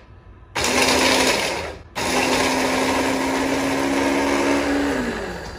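Electric hand blender running on its mini chopper bowl attachment, chopping basil, walnuts, garlic and olive oil into pesto. It runs in two goes, a short burst about half a second in and a longer run from about two seconds, with a steady motor hum that sinks in pitch as the motor winds down near the end.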